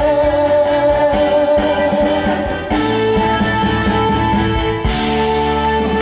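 Live band playing the instrumental close of a Mandarin pop ballad: sustained chords that change about halfway through and again near the end.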